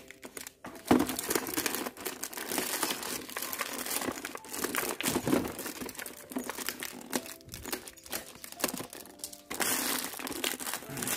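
Black plastic mailer bag and its clear packing tape crinkling and crackling as hands tear the parcel open, loudest near the end.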